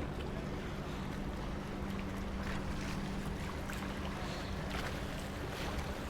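A steady low motor hum with a constant pitched tone, likely a boat engine running, along with a few faint scattered ticks.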